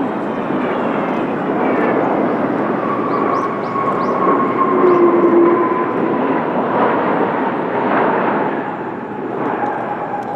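Jet airliner passing by: a loud, steady rush of engine noise with whining tones that slowly fall in pitch.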